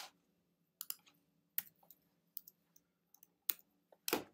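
Faint, sparse clicks of a computer keyboard and mouse as a spreadsheet formula is entered, about one click every second, with a louder click near the end.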